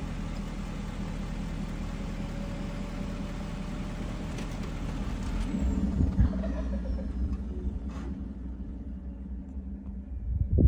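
Vehicle engine idling with a steady low hum. There is a brief louder knock right at the end.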